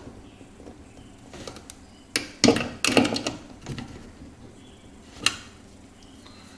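Scattered clicks and knocks of metal hardware and a hand tool being handled while nuts are tightened onto mounting bolts, with a quick cluster of clicks a little over two seconds in and a single sharp click about five seconds in.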